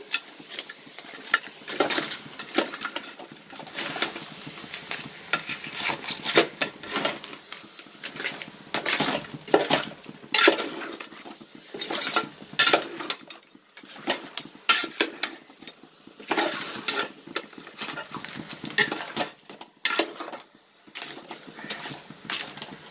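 A metal spoon stirring crab pieces in a metal cooking pot, with irregular clinks and scrapes against the pot's sides.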